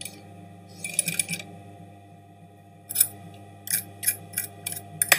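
Short bursts of rustling and clicking as human hair is pushed and smoothed under the needle of an industrial sewing machine, over a steady low hum. There is one cluster about a second in, then a quicker run of about eight bursts in the last two seconds.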